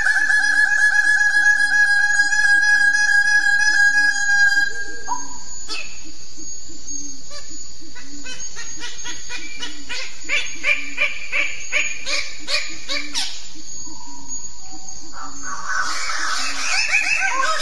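Birds-of-paradise calling. A long, steady buzzing call lasts about five seconds, then comes a run of short, sharp notes, and loud harsh calls start again near the end.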